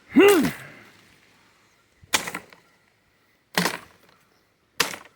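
A short shout, then three sharp chops of a thick-bladed Honshu Tactical wakizashi striking a target, roughly a second and a half apart.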